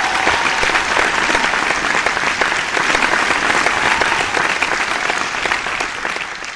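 Audience applauding, a dense spread of many hands clapping that thins and fades out near the end.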